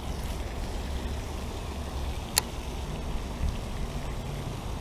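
Steady low rumble of wind on the microphone, with a single sharp click about halfway through.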